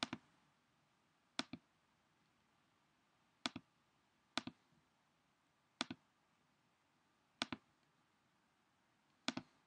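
A computer mouse button clicked seven times at irregular intervals of one to two seconds, each click a quick press-and-release pair, as the on-screen 'Bring to Front' button is used.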